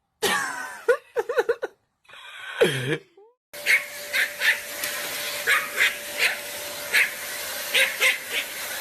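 Dog whining and yipping across several quick cuts: a few wavering whines in the first two seconds and a falling whine near three seconds, then a run of short yips about two a second over a steady background hum.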